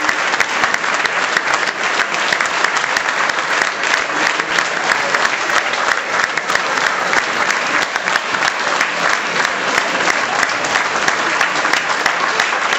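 A theatre audience applauding steadily, a dense crowd of clapping hands without a break.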